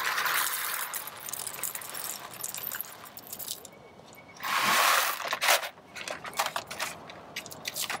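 Whole coffee beans poured from a bag into the hopper of a Cafflano Klassic hand grinder: a rattling pour with the bag rustling, a louder rush just past halfway, then scattered clicks as the last beans drop and settle.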